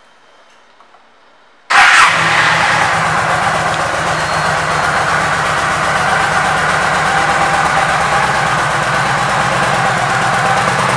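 2009 Yamaha V Star 1300's 1304 cc V-twin engine starting: a few faint clicks, then it fires up suddenly about two seconds in and settles into a steady idle.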